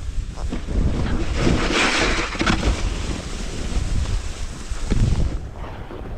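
Snowboard sliding and carving over snow, a rough hiss and scrape from the board and its edges, under heavy wind noise buffeting the microphone. The scraping is strongest about two seconds in and drops away after about five seconds, leaving mostly wind rumble.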